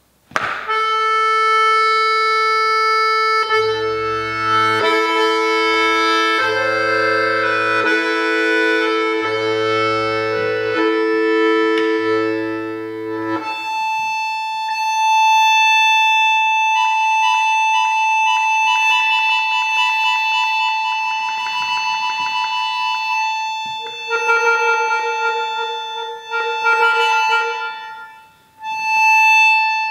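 Button accordion playing a slow tune of long held notes, with four deep bass notes pulsing under the first half. Then it holds long high notes, breaking off briefly near the end.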